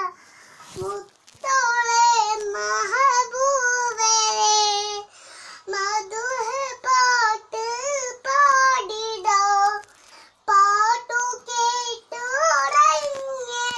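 A child singing a lullaby in a high voice, in short wavering phrases with brief pauses between them.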